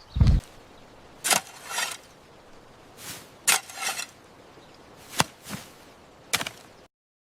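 A run of sharp knocks and short scraping strokes, with a heavy low thud at the start. The sound cuts off abruptly about seven seconds in.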